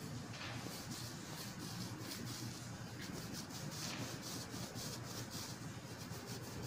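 Palms rolling a log of white bread dough back and forth on a granite countertop while shaping a loaf: a soft, repeated rubbing swish, a few strokes each second.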